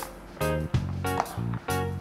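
Background music with a bass line and short repeated chords at a quick, even beat.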